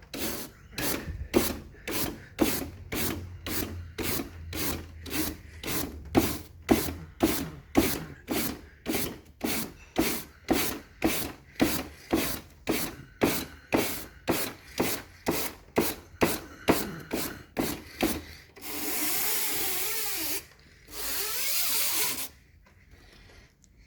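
Brush scrubbing an air-conditioner part in even back-and-forth strokes, about two a second, then two steady hissing bursts of over a second each near the end.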